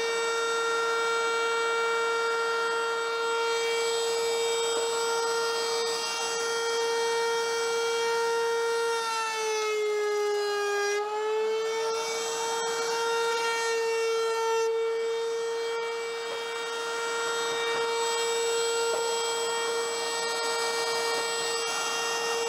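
Table-mounted wood router running at full speed with a steady high whine, cutting a half-inch round-over profile along the edges of a wooden box, with a hiss of wood being cut that comes and goes. The whine sags briefly in pitch about ten seconds in as the cut loads the motor.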